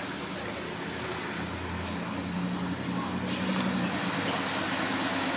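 Swing bridge turning machinery: a steady low mechanical hum from the drive and the steel roller wheels running on the circular rail, growing slowly louder.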